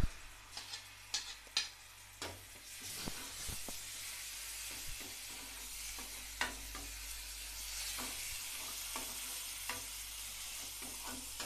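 Ginger-garlic paste and onions sizzling in hot mustard oil in a metal kadai while a metal ladle stirs and scrapes the pan, with occasional clicks of the ladle on the metal. The sizzle builds about two seconds in and then holds steady.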